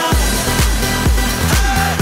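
Background music with a steady, heavy bass beat, about two beats a second; the beat drops back in right at the start.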